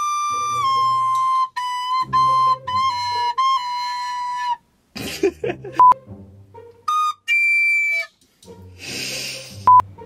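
A recorder played badly: a run of short, wobbly notes hovering around one pitch for the first four seconds or so, then after a break some breathy puffs, a shrill higher note held for about a second, and an airy, hissing blow near the end.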